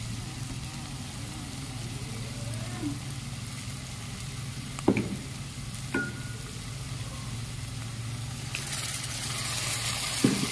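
Diced onion, capsicum and carrot sizzling in oil and soy sauce in a kadhai, with a few sharp knocks of a stirring utensil against the pan. The sizzle grows louder about eight seconds in.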